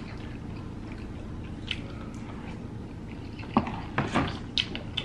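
Eating and drinking mouth sounds: quiet chewing over a low room hum, then a few short sharp clicks and gulps in the last second and a half while a drink is swallowed from a clear plastic cup.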